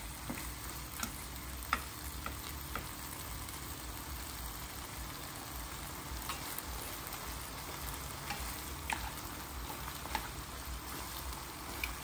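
Stir-fry of green beans, squid and shrimp sizzling steadily in a frying pan, with scattered light clicks of chopsticks against the pan as the food is turned.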